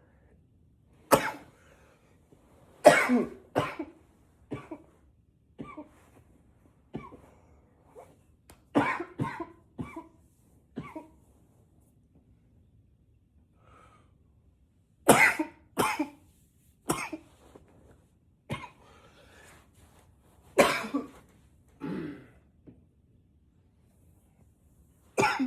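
A man coughing hard in repeated fits: short, sharp coughs, often two or three in quick succession, with brief pauses between fits and a longer pause about halfway through.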